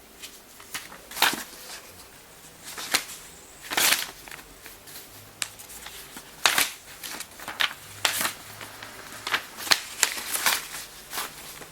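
Paper rustling and scraping in short, irregular bursts, every second or two: notebook pages being pawed and pushed about.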